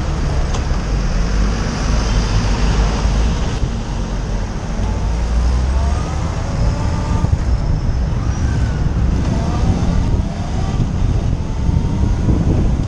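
Motorcycle engine pulling away from a standstill and accelerating, its pitch climbing in several short rises from about six seconds in as it goes up through the gears, over a heavy low rumble of wind and road noise.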